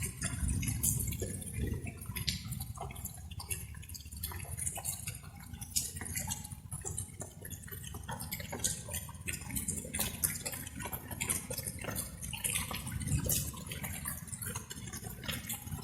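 Light rain: drops falling and dripping in quick, irregular taps over a steady low rumble.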